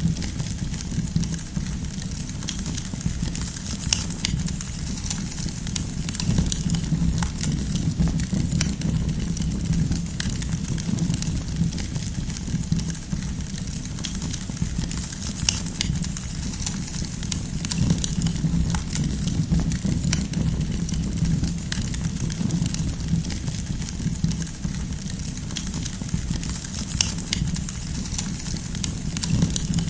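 Campfire of burning firewood crackling, with many small sharp pops and clicks scattered over a steady low rumble.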